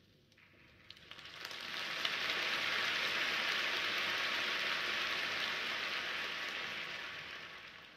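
Large arena crowd applauding, swelling in about a second in, holding steady, then fading away near the end.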